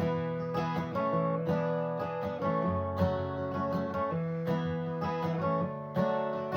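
Martin acoustic guitar strumming chords steadily in an instrumental passage with no singing.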